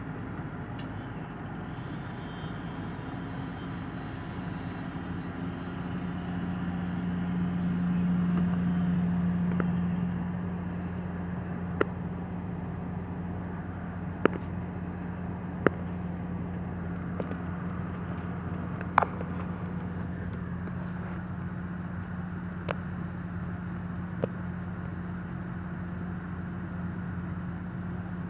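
An engine running steadily at a constant low pitch, swelling briefly about a third of the way in, with a few scattered sharp clicks.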